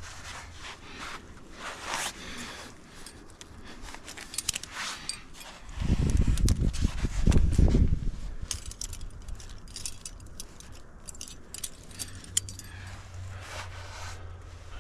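Metal climbing gear (carabiners and protection on a harness) jangling and clinking in irregular runs of small clicks as the climber moves. About six seconds in, a low rumble on the microphone lasts about two seconds and is the loudest thing heard.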